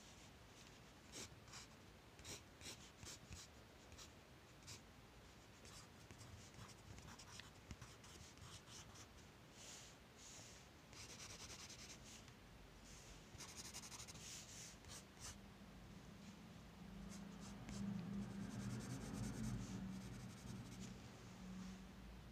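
Pencil scratching on sketch paper: quick short strokes, then longer hissing rubs of shading. A low hum comes up in the last few seconds and is the loudest sound.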